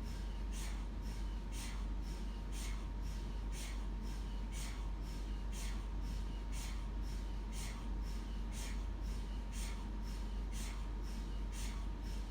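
MRI scanner running a scan sequence: even, rhythmic swishing pulses about two a second over a steady low hum and a faint steady tone.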